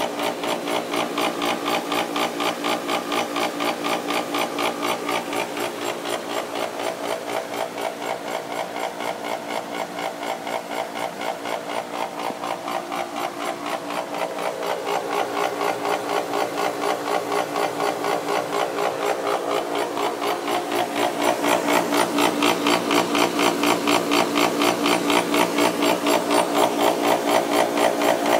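A Jandy pool pump's A. O. Smith electric motor running with bad bearings, making an awful racket: a loud, fast, even pulsing grind. It grows louder about three-quarters of the way through.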